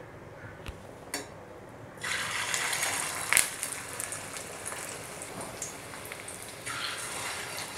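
Chicken chapli kebab patties sizzling in shallow hot oil in a stainless steel frying pan. The sizzle starts suddenly about two seconds in as the first patty goes into the oil, with a sharp pop about a second later, and swells again near the end as a second patty is laid in.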